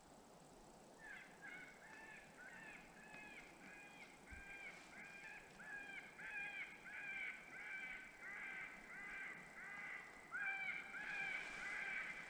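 Lucky Duck Rebel electronic predator call playing a baby cottontail rabbit distress sound, used to lure coyotes. It gives a steady run of short, arching cries, about two a second, starting about a second in and growing louder toward the end.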